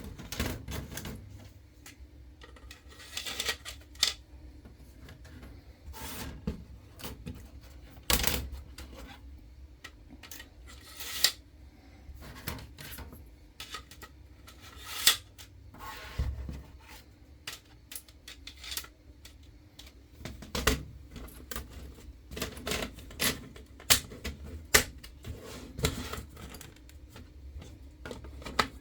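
Irregular clicks and light knocks of small hard objects being handled, over a faint steady low hum.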